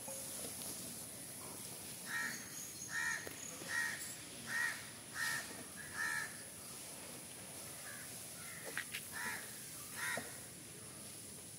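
Crows cawing: a run of about seven caws a little under a second apart, then a few more after a short pause.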